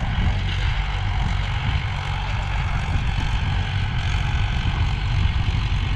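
Mahindra 415 tractor's diesel engine running steadily under load while pulling an 18-disc harrow through the soil.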